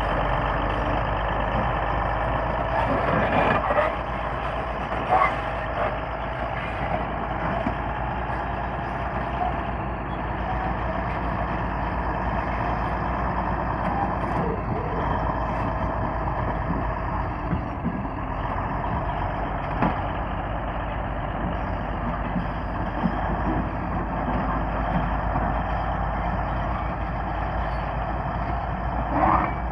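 Komatsu D155A crawler bulldozer working, its diesel engine running steadily under load, with a few sharp metallic knocks.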